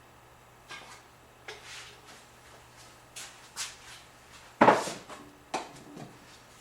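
Small objects handled and set down on a workbench: a string of light clicks and knocks, with one louder knock about two-thirds of the way in that rings briefly.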